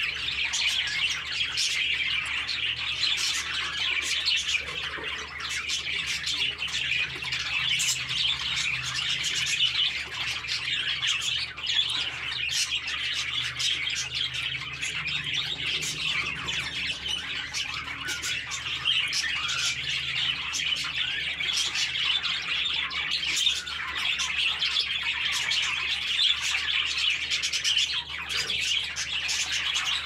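A flock of budgerigars chattering continuously, a dense stream of overlapping chirps and warbles.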